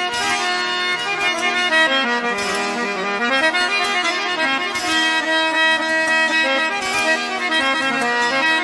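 Instrumental South Asian folk music led by a free-reed instrument playing a melody over held notes.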